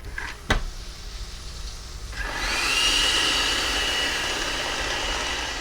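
A sharp click, then about two seconds in a LuBlueLu SL60D robot vacuum's motor spins up with a rising whine and runs steadily.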